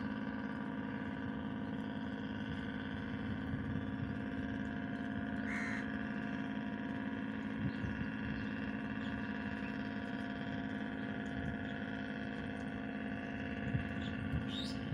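A steady engine-like drone made of several held tones, with a few short, high rising chirps over it.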